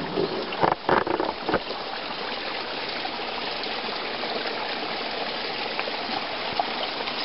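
Creek water running steadily, with a few brief, louder sounds about a second in.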